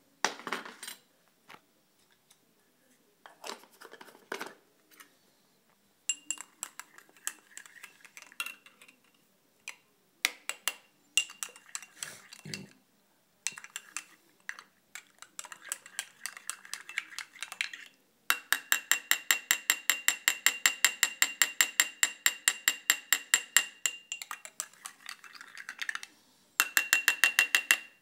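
A metal spoon stirring powder into water in a glass tumbler, clinking against the glass. The clinks come irregularly at first, then about two-thirds of the way through they turn into a fast, even run of about six clinks a second, and there is another quick run near the end.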